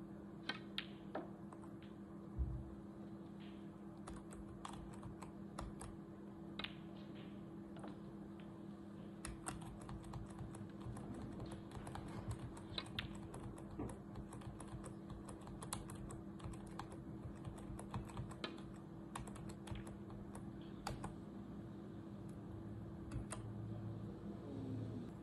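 Computer keyboard typing in irregular runs of quick clicks over a steady low hum, with a single thump about two and a half seconds in.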